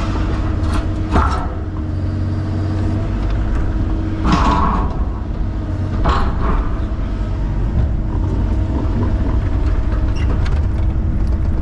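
Excavator's diesel engine running steadily, with a few short scraping clanks about a second, four seconds and six seconds in.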